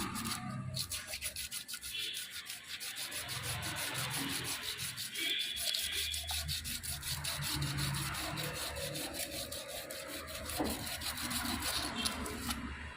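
Emery paper being rubbed over a motorcycle's rear brake disc in quick, even back-and-forth strokes, scuffing the disc face so that the new pads do not wear it down again.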